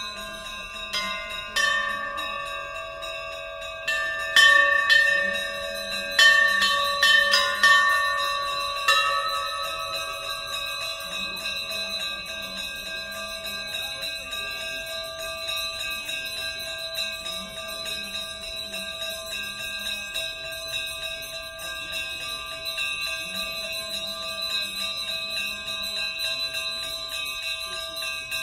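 Temple bells rung by hand: about a dozen quick strikes in the first nine seconds, then a long ringing hum of several steady tones that hangs on.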